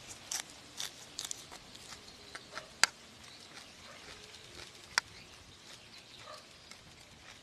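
Close-up eating sounds: scattered crunching and chewing, with two sharp clicks about three and five seconds in.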